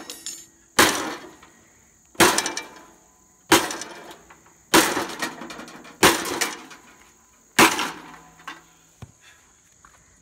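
Sledgehammer blows on the metal frame of an old grill: six hard strikes about one every 1.3 seconds, each ringing briefly, until the wheel is knocked off.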